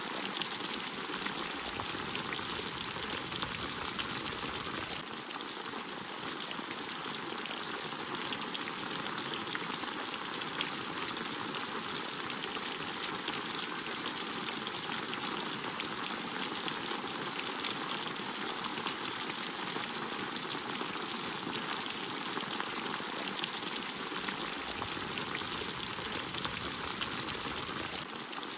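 Steady rain falling: an even hiss with scattered drop ticks, dipping slightly in level about five seconds in.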